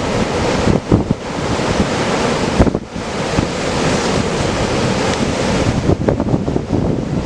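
Ocean surf breaking from a hurricane swell, with wind buffeting the microphone in gusts.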